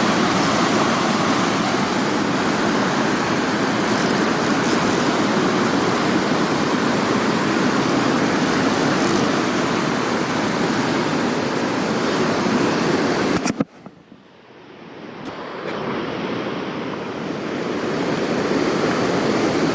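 Steady rushing outdoor noise, wind or running water, with nothing pitched or rhythmic in it. It cuts out suddenly about thirteen seconds in and swells back gradually over the next few seconds.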